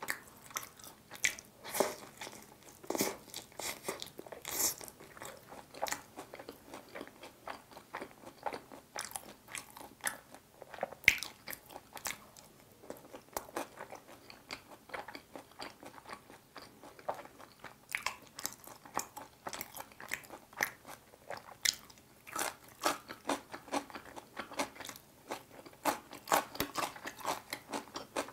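Close-up chewing and crunching of sauce-coated fried chicken (yangnyeom chicken), a dense, irregular run of crunches and clicks.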